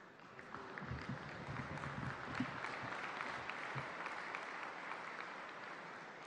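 Audience applauding, swelling up over the first second or two and then slowly dying down.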